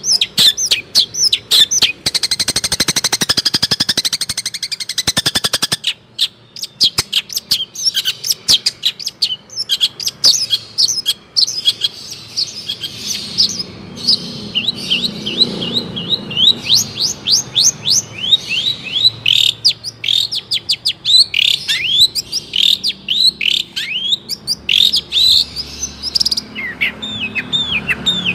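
Long-tailed shrike (cendet) singing a loud, fast, varied song. A few seconds in comes a dense, very rapid rattling trill, followed by long runs of quick, high, downslurred chirps several a second.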